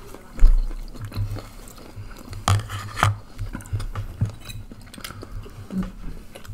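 People chewing and eating, with scattered sharp clicks and clinks of utensils and shells against the tray, and one loud low thump about half a second in.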